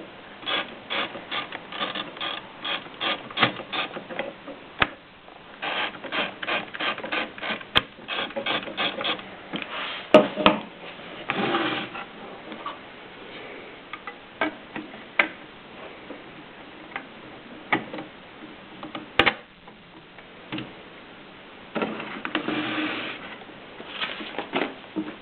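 Mercedes Superba typewriter being typed on: quick runs of key strikes, several clicks a second, broken by pauses and a few louder single strikes. Twice, about halfway through and near the end, comes a longer ratcheting sound.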